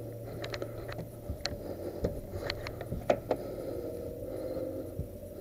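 A string of about ten sharp clicks and pops, irregularly spaced, the loudest a little past three seconds in, over a steady low rumble.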